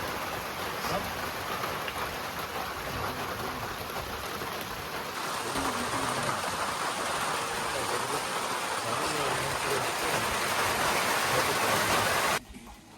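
Steady rushing, hissing noise like rain or running water, with faint voices in it; it cuts off abruptly about half a second before the end.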